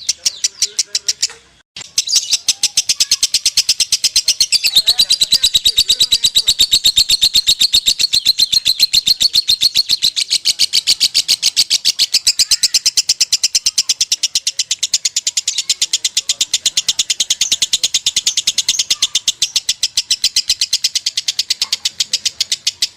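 Lovebird singing a long, unbroken chatter of fast, evenly repeated high notes, the non-stop 'ngekek' that breeders call konslet. There is a short break about one and a half seconds in, then it runs on without pause.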